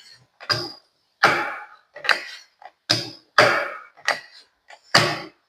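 Steel automatic toggle clamps being snapped shut and released by hand onto test parts. Their lever mechanisms give a series of sharp metallic clacks, one or two a second, some ringing briefly.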